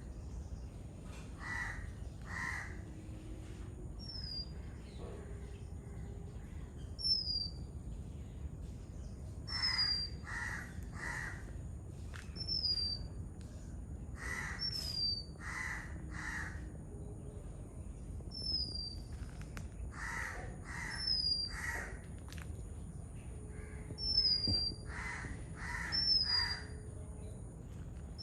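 Oriental magpie-robin calling: a short, high, downslurred whistle repeated every two to three seconds. Louder, coarser calls come in groups of two or three over it, like a crow cawing.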